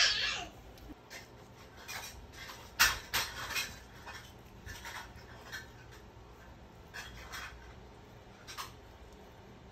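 A sharp clatter of utensils, then a run of light clicks and scrapes as wooden chopsticks knock against a ceramic plate while lifting fried eggs off it, with soft rubbing between the clicks.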